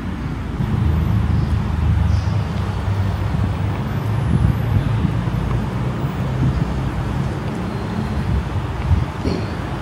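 A low, uneven rumble that holds throughout, with no speech over it.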